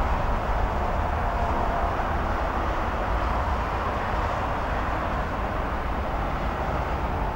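A steady distant engine drone whose pitch sinks slowly, over a low rumble.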